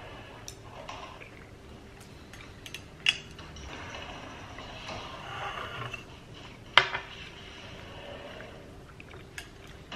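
Tableware clinking: wooden chopsticks and a spoon knocking on an enamel plate and against a small glass cup, a handful of scattered sharp clicks, the loudest about seven seconds in.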